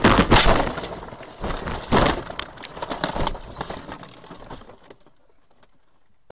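A car crashing off the road into the grassy roadside, heard from inside the cabin: a heavy bang, a second bang about two seconds in, then knocking and rattling that dies away as the car comes to rest.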